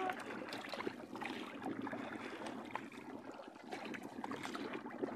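Wooden paddle stroking through seawater beside a small outrigger canoe: splashing and trickling water, with scattered small clicks and knocks.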